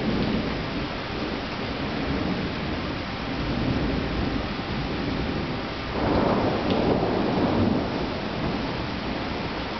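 Thunder rolling over steady rain, with a longer, louder swell of thunder about six seconds in.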